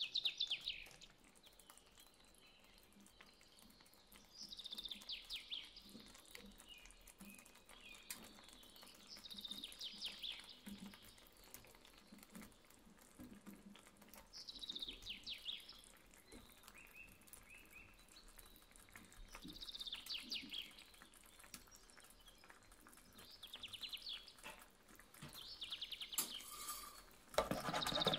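A bird singing short, fast trills that fall slightly in pitch, repeated every two to five seconds. About a second before the end a louder, even noise starts.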